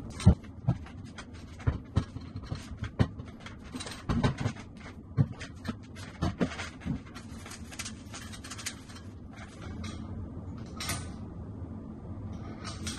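Knocks and clacks of the Sky-Watcher EQ6-R Pro's steel-legged tripod being set upright and its legs spread open, a string of sharp knocks over the first several seconds. After that comes quieter handling with a couple of brief scrapes.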